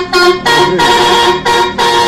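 Bus's Basuri telolet multi-tone horn playing a quick tune: a run of loud, short horn notes at changing pitches with brief breaks between them.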